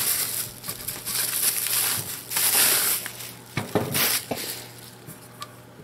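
Bubble-wrap plastic bag crinkling in several bursts as it is pulled off a lantern. About halfway through come a few light knocks as the lantern is handled on a wooden table, and the sound grows quieter near the end.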